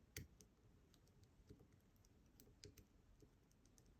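Faint, irregular clicks and ticks of a lock pick and tension wrench working the pins of an ASSA 700 pin-tumbler lock fitted with Christmas-tree security pins; the loudest click comes just after the start.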